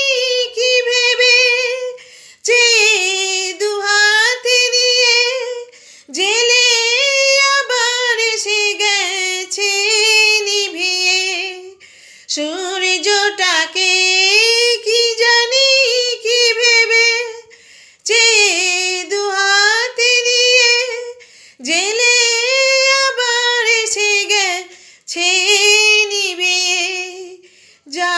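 A woman singing a Bengali song unaccompanied, in long held phrases of a few seconds each with short breaks between them.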